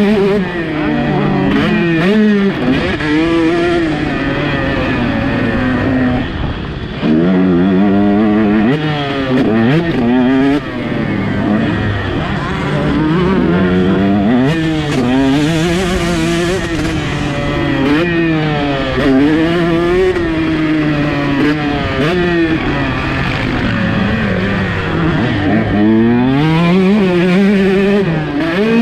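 A 150 cc two-stroke motocross bike engine (KTM 150 SX) under hard riding, its pitch climbing and falling over and over as it accelerates, shifts and rolls off. It goes quieter briefly twice in the first half before pulling hard again.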